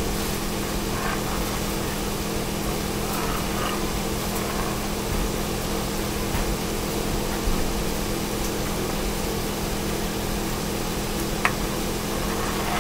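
A steady mechanical hum, with faint scrapes of a silicone spatula stirring eggs in a cast-iron skillet and one sharp click near the end.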